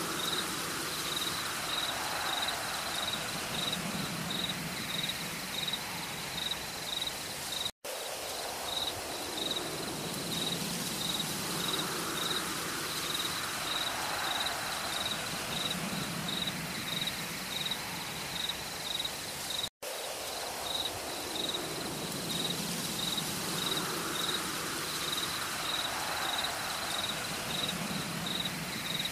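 An insect chirping steadily in short high pulses, two or three a second, over a soft forest background with gentle swells. The sound drops out completely for an instant twice.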